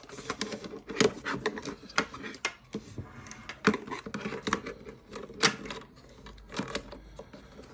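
Irregular clicks and knocks of hard plastic food-processor parts, the base housing and a small circuit board, being handled and set down on a countertop, with a few louder knocks.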